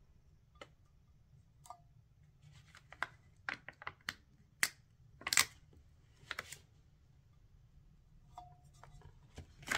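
Scattered light clicks, ticks and short scratches of hands working small rose gold metallic vinyl leopard spots: picking them off their backing sheet with a thin pointed tool and pressing them onto a glittered tumbler with a small plastic scraper. The loudest scrape comes about halfway through.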